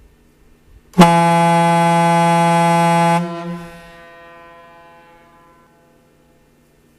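Bronze Leslie Tyfon A-200 marine ship horn sounding one blast of about two seconds on its single low note, E3 (about 168 Hz). It starts abruptly with a sharp peak, holds steady, then cuts off, and the echo dies away over the next few seconds.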